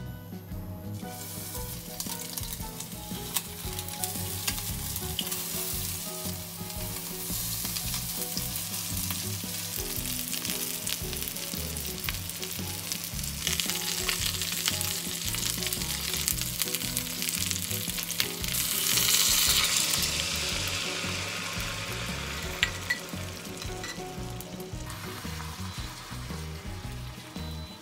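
Stuffed green peppers and meat sizzling in oil in a nonstick frying pan, with the scrape and tap of a spatula as they are turned. The sizzle grows loudest about two-thirds of the way through, then eases.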